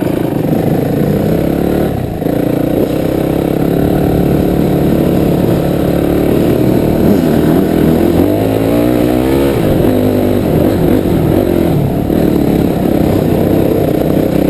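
Dirt bike engine running under throttle while riding, its pitch rising and falling with the revs, with a clear rev-up about two thirds of the way through.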